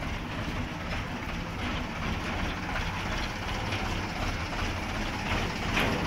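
Tractor's diesel engine running steadily at low speed, towing a concrete mixer.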